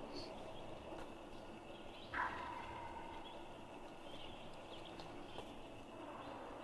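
A wild turkey gobbler gobbles once, about two seconds in: a sudden call that drops in pitch and trails off.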